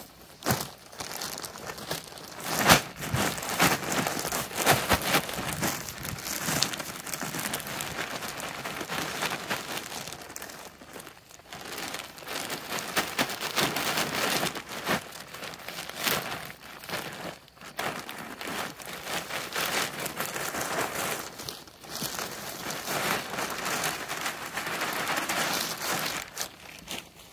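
Plastic bags of black shredded mulch crinkling as they are tipped and emptied, with the mulch pouring and rustling out onto the soil. A couple of brief pauses fall in between.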